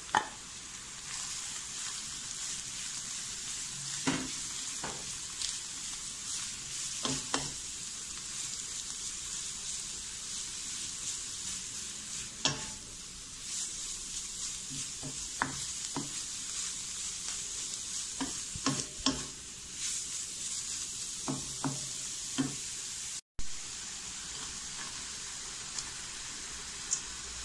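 Julienned carrots and sliced garlic sizzling in a hot wok, steadily hissing, while a wooden spatula stirs them, knocking against the pan now and then.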